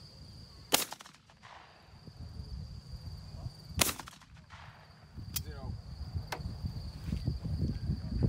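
Two shotgun shots about three seconds apart, each sharp and followed by a short echo, as the shooter fires at clay targets. A few faint clicks follow.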